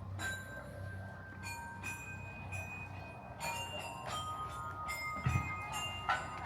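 Metal chimes ringing: a string of clear tones at different pitches, struck one after another at irregular moments, each ringing on as the next sounds. A brief low thump a little after five seconds in.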